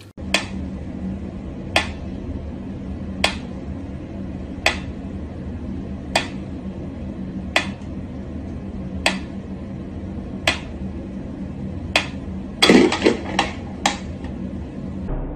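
Mechanical pendulum metronome ticking slowly and evenly, about one sharp tick every one and a half seconds, over a steady low hum. Near the end there is a short burst of louder knocks and scuffling.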